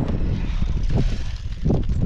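Wind buffeting the microphone: a loud, uneven rumble.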